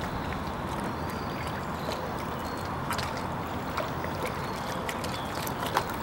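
Lake water lapping as a steady wash of noise, with a few faint scattered clicks.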